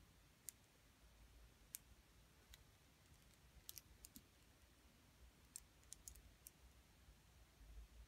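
Near silence with faint, scattered clicks of metal rings and long nails knocking together as the rings are handled, about a dozen light ticks at uneven intervals.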